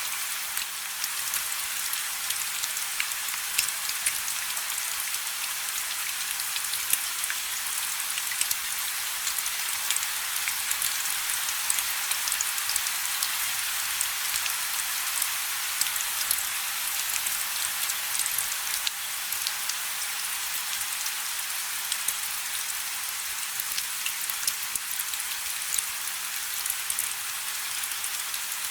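Steady rain falling, an even hiss dotted with many separate sharp drop ticks.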